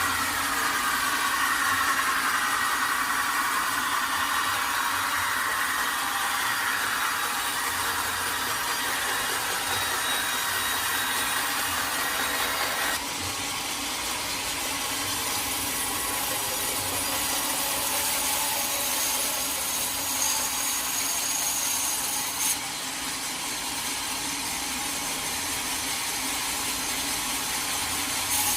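Sawmill blade running steadily through a teak log, a continuous sawing noise that shifts abruptly twice.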